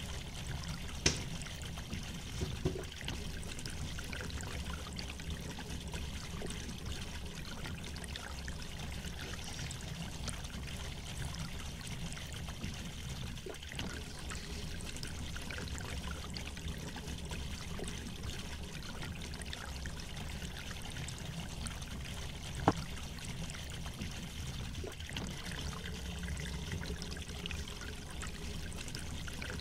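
Steady rushing background noise with a low hum underneath, broken by a few sharp clicks: a loud one about a second in, two smaller ones soon after, and another loud one about three quarters of the way through.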